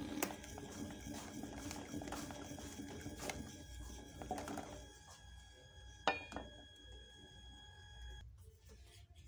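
Wooden spoon stirring thickening custard in an aluminium saucepan: faint scrapes and light knocks of the spoon against the pan, with one sharper knock about six seconds in. A faint steady hum underneath cuts off near the end.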